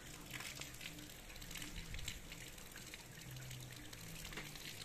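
Steady light rain falling on roofs and foliage, with scattered drips and splashes.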